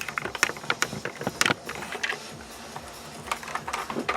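Irregular clicks and knocks of a camera being handled and repositioned on its mount, densest in the first second and a half.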